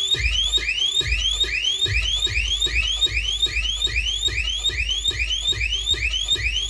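DJ sound system blasting an electronic siren effect: a short rising whoop repeated about three times a second over pulsing bass.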